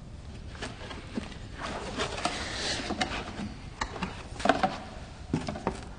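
Handling noise from a cardboard candle box and its contents: scattered light clicks and knocks, with a stretch of rustling about two to three seconds in.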